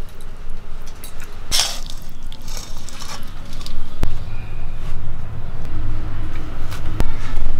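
A metal spoon scraping and clinking in a metal cooking pan of cooked broccoli, with one sharp clink about four seconds in and another near the end, over a steady low rumble.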